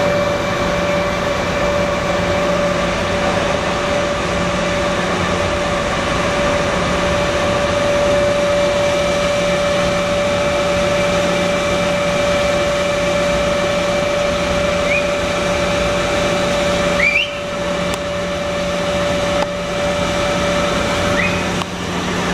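A steady machine hum of several constant tones, with a few short chirps near the end.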